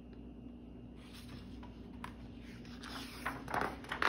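A page of a hardcover picture book is turned by hand, the paper rustling in a few quick swishes near the end. Before that there is only faint room tone.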